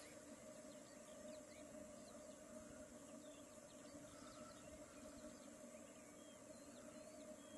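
Black grouse lek: a faint, steady chorus of the males' low bubbling display song, with short high chirps scattered over it.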